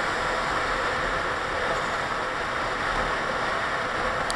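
Steady rush of wind and road noise from a motorcycle riding along, picked up by a helmet-mounted camera, with one brief click near the end.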